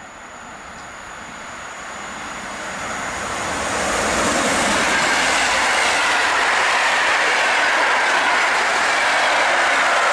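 PKP Intercity passenger train approaching and passing close at speed: a rush of wheels on rails that swells to loud about four seconds in, then the steady clatter of the coaches going by, with a high whine that slowly falls in pitch.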